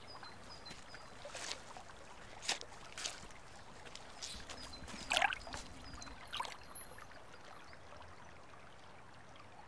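Quiet waterside ambience: a faint steady wash of water with soft splashes at uneven intervals, the loudest about five seconds in. Faint high bird chirps come now and then.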